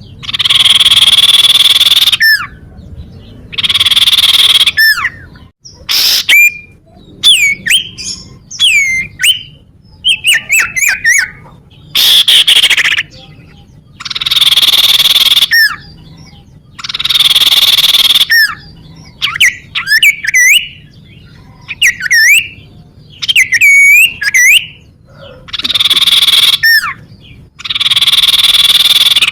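Recorded calls of a common iora (cipoh): repeated harsh, buzzy calls a second or two long, alternating with quick whistled notes that sweep up and down in pitch.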